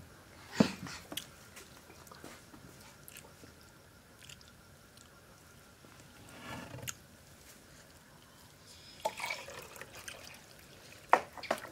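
Quiet eating sounds: fingers scraping the last rice off a terracotta plate, with wet clicks and smacks. A sharp click comes about half a second in and a cluster of clicks near the end.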